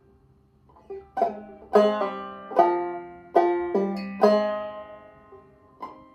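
Five-string banjo played clawhammer style in a C-minor tuning. After a quiet first second comes a short phrase of about six sharp struck notes, each ringing out, with quick pull-offs dropping the pitch. A softer single note follows near the end.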